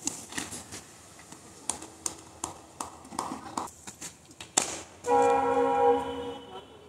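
Scattered light taps, then a sharp crack of a cricket bat striking a tennis ball about four and a half seconds in. Right after it, a loud steady horn sounds for about a second and fades.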